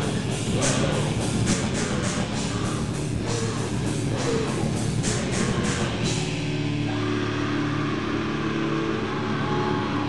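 Live heavy rock band playing loud, with distorted electric guitars over a fast, steady drum beat. About six seconds in the drums stop and held guitar notes ring on.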